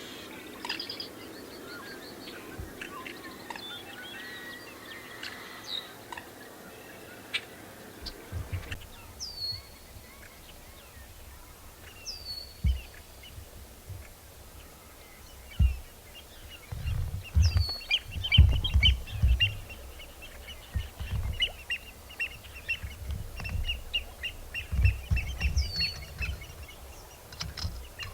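Marsh birds calling. A sharp note that drops in pitch repeats every few seconds, and from about halfway a fast rattling trill runs beneath it. Gusty low rumbles of wind on the microphone come through.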